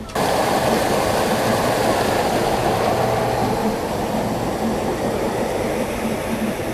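Water rushing steadily over a small rocky cascade into a garden stream, an even, loud rush that starts abruptly.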